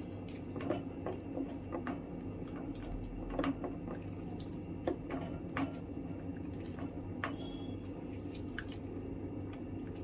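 Thick dosa batter with chopped onion, chilli and coriander being stirred in a bowl: soft wet squelching with scattered light clicks.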